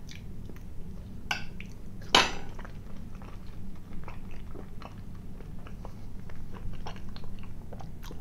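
A person chewing a bite of sausage with mustard close to the microphone: many small wet mouth clicks and smacks, with one short louder sound about two seconds in.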